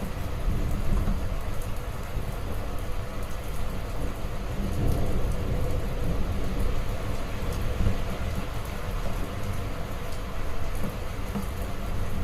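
Heavy rain falling steadily, with a low rumble of thunder underneath that swells about five seconds in.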